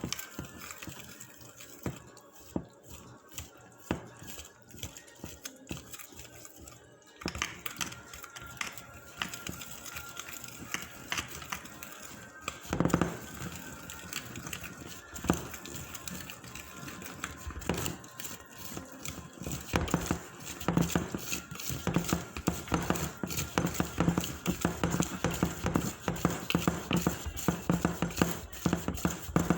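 Hotcake batter being mixed by hand in a bowl: rapid, uneven clicking and scraping of the utensil against the bowl, getting busier about seven seconds in and faster again after about twenty seconds.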